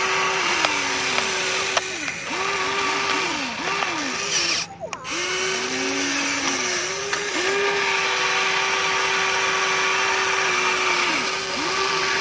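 Electric motors of a Huina radio-controlled toy excavator whining steadily as the boom and bucket move. The pitch repeatedly sags and slides back up as the motors load up and stop, with a short break about five seconds in.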